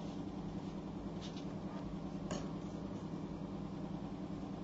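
Faint scratching of a pen writing on paper, with a soft tap about two seconds in, over a steady low electrical hum.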